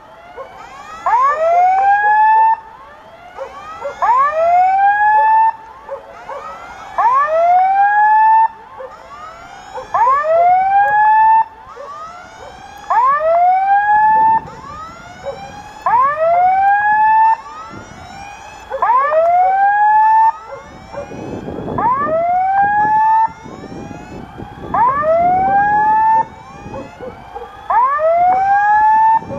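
Level crossing electronic warning signal sounding while the crossing waits for a train: repeated rising whoops in loud stretches of about a second and a half every three seconds, with a fainter second signal heard in between.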